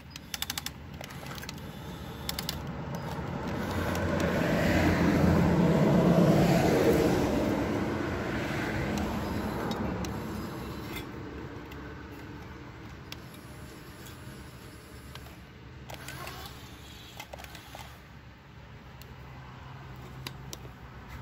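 A road vehicle driving past: its noise builds over a few seconds, is loudest about six seconds in, then fades away, leaving a low steady traffic hum. A few faint clicks sound near the start.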